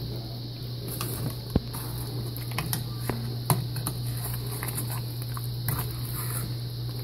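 Wire potato masher pushing and stirring through sugared blackberries in a nonstick pot, a wet crackly squishing with a few sharp clicks as the metal strikes the pot. A steady low hum runs underneath.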